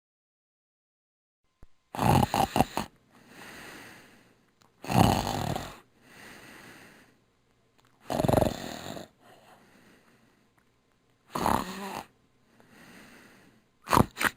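Snoring: a loud, rattling snore on each breath in, followed by a quieter breath out, repeating about every three seconds after a couple of seconds of silence.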